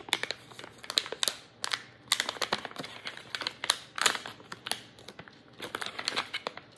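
Plastic pickle pouch crinkling and crackling in the hands as it is handled and pulled open at the top.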